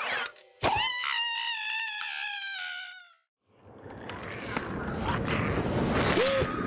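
Cartoon sound effects: a sudden hit, then a pitched tone sliding slowly downward for about two seconds before stopping. After a brief silence, a rough, noisy rumble builds up.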